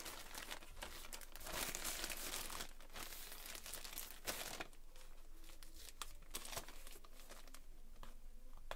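White plastic courier mailer crinkling and rustling as it is pulled and worked open by hand. The crinkling is busy for the first half, then thins to softer, sparser rustles.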